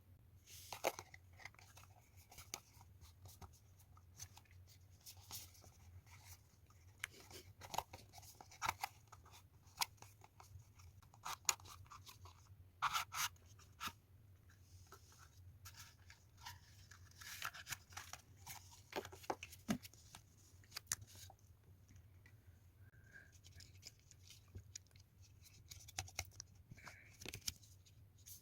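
Packaging being handled and opened by hand: irregular crinkling, tearing and tapping of plastic wrap, paper and card, over a low steady hum.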